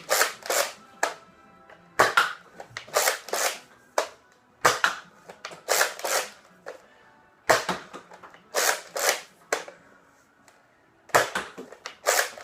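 A Nerf dart blaster being cocked by hand and fired over and over: groups of sharp plastic clacks from the priming action and the pop of each shot, a group every second or two.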